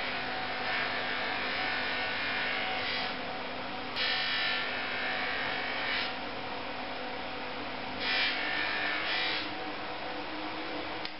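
A small electric bench buffer runs with a steady hum while a black plastic eyeglass frame is pressed against its cloth buffing wheel. Each press gives a rubbing hiss that swells at the start, about four seconds in and about eight seconds in. The buffing polishes a dulled, whitish frame back to a gloss.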